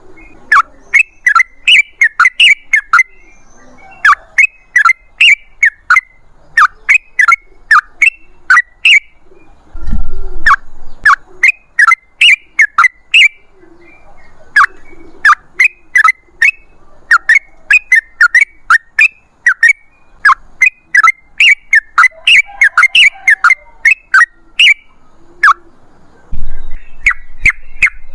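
Yellow-vented bulbul (trucukan) singing in long, rapid runs of short, sharp, downward-sliding notes, several a second, with brief pauses between phrases. A low rumbling bump about ten seconds in and another near the end.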